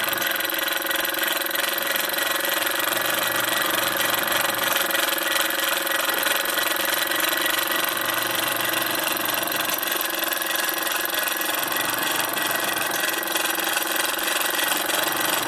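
Bowman M158 toy stationary steam engine running steadily on compressed air: an even, fast hiss of exhausting air with the small mechanism whirring.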